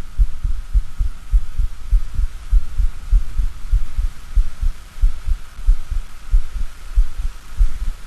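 Recorded heart sounds: low thumps of the heartbeat in an uneven rhythm, the irregular pattern of a heart with extrasystoles (premature extra beats). A faint steady hum sits behind the beats.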